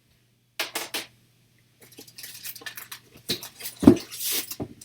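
Hard plastic graded-comic slabs being handled and set down: a few clicks about half a second in, then clattering and rustling, with one heavier thump about four seconds in.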